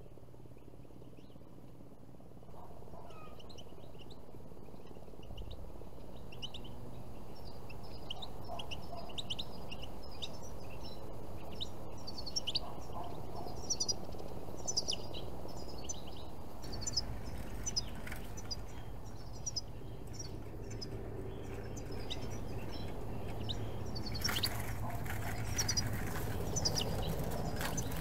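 European goldfinches calling: a long run of short, high twittering chirps, several a second, then a loud rustling noise for the last few seconds.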